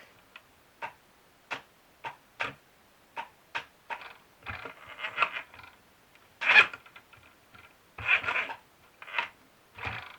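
Cheap mini sewing machine stitching in stop-start spurts: a string of sharp, uneven clicks with a few short rattling runs, as it struggles to feed thin fabric.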